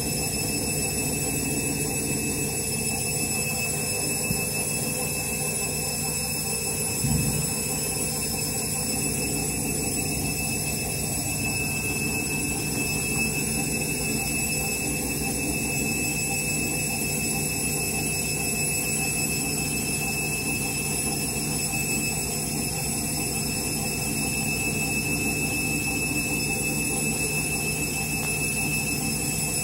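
Candy washing machine running with a steady high-pitched whine, with one brief low thump about seven seconds in.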